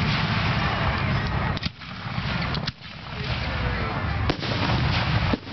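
Aerial fireworks display: sharp shell bursts going off roughly once a second over a steady rushing, crackling background.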